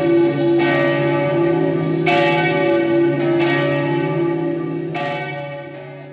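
Church bells ringing, a new strike about every second and a half over the ringing of the last, then fading out near the end.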